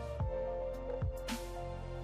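Background music: sustained melodic tones over a slow beat, with two deep drum hits and a cymbal-like wash.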